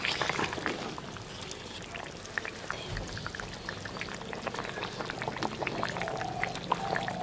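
Thin fish curry simmering in an open pan, its bubbles popping in many small irregular ticks over a soft hiss.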